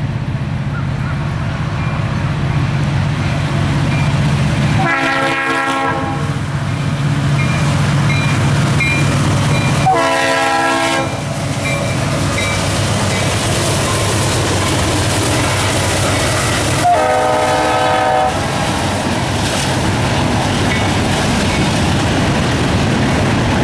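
Norfolk Southern diesel freight locomotives sounding their air horn three times for a grade crossing, each blast a little over a second long, over the steady low rumble of the engines. From about halfway through, the locomotives and tank cars roll past with a loud rushing clatter of wheels on rail.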